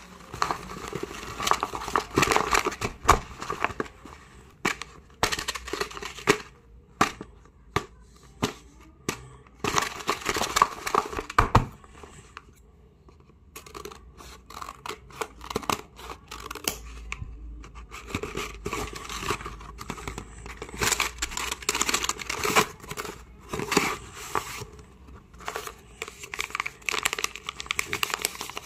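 Paper rustling, crinkling and tearing in irregular bursts as a folded paper blind bag is handled and opened, with snips of scissors cutting through the paper. There is a quieter spell about halfway through.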